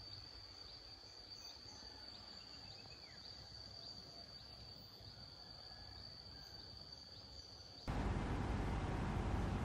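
Insects trilling outdoors in one steady, high, unbroken note, with a faint falling bird call about three seconds in. Near the end this cuts off abruptly and gives way to a louder steady hiss.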